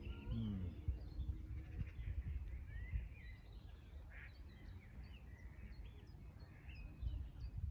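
Small birds singing and calling, a run of short chirps and quick rising and falling notes, over a low rumble.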